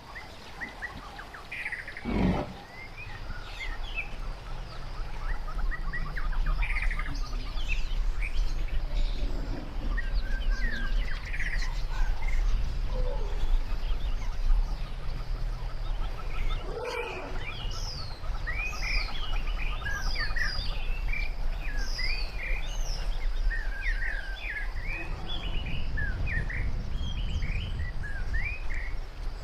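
Many birds chirping and calling in quick short notes over a steady low rumble, with a single thump about two seconds in.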